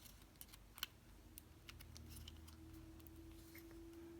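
Faint, sparse small clicks of a lock pick and tension wrench working the pins inside a Reece dimple-key LOTO padlock, over a weak steady hum.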